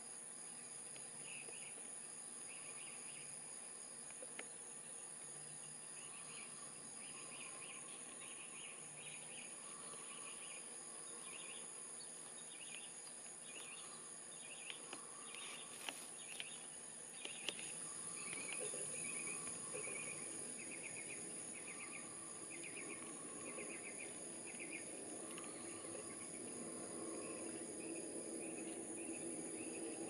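Insects calling: a steady high-pitched whine, with short pulsed chirps repeated about once a second over it. A low rushing noise builds near the end.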